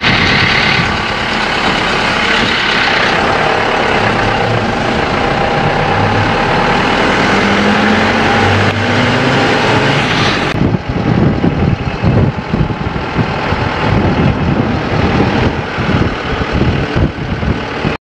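Engine and road noise of a moving safari canter, an open-top safari truck, running steadily, with its engine pitch rising slightly around seven to nine seconds in. After a cut about ten seconds in, the noise turns choppier with irregular low rumbling.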